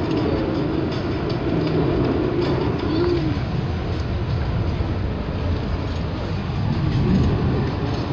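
Subway train running at speed, heard from inside the passenger car: a steady rumble and rattle of wheels on rail, with a low wavering whine over it.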